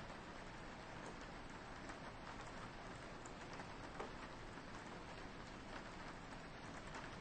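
Soft, steady rain pattering on a window, with scattered individual drops ticking against the glass.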